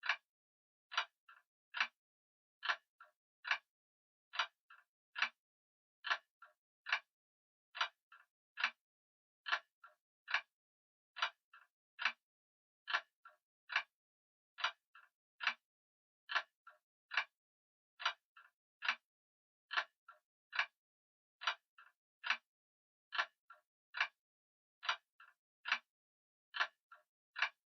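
Grandfather clock ticking steadily: sharp ticks a little faster than one a second, each strong tick paired with a fainter one.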